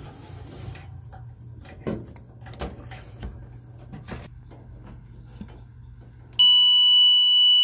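Power Probe circuit tester sounding a loud, steady high-pitched tone that starts abruptly about six and a half seconds in as its tip makes contact, signalling battery voltage (about 11.9 V) on the ignition-fed wire. Before it, light clicks and rustles of wiring being handled.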